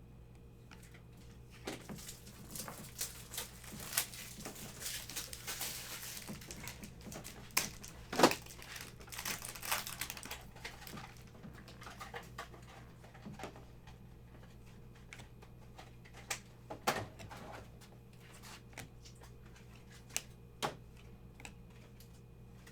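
Trading cards being handled: a pack wrapper crinkles for several seconds, with scattered light clicks and taps as the cards are shuffled and set down.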